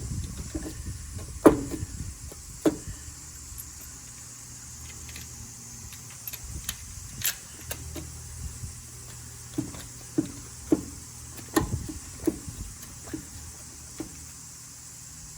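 Scattered metallic clicks and knocks of hand tools and parts being handled during spark plug work on a Honda Vamos Hobio, over a steady low hum.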